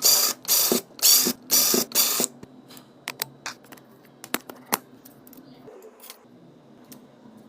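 Rhythmic scraping strokes, about two a second, for the first two seconds, then scattered small clicks and taps.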